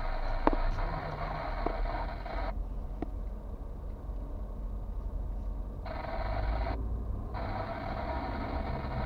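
Car driving slowly, heard from inside the cabin through a dashcam: a steady low engine and tyre rumble, with a few light clicks and rattles near the start. A hiss over it cuts out abruptly for a few seconds midway.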